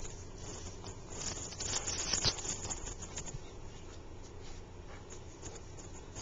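Dogs running and tussling on loose dirt: light pattering and scuffing of paws, with one sharp click a little over two seconds in.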